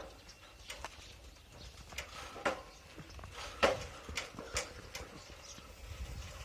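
Irregular clicks and knocks from a bicycle being ridden: the bike and its camera mount rattle over bumps in the road, loudest about three and a half seconds in, over a faint low rumble.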